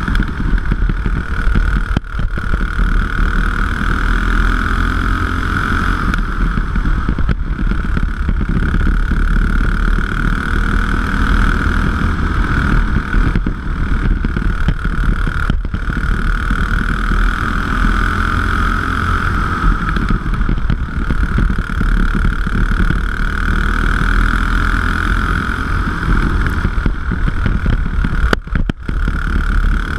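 Racing kart's engine running hard on board, its pitch climbing and falling over and over as it accelerates and eases off around the track, with a few brief sharp drops when the throttle is lifted.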